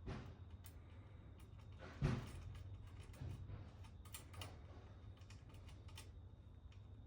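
Small clicks and knocks of hands and tools working on a bicycle's rear brake and cable at the pinch bolt, with one louder knock about two seconds in, over a low steady hum.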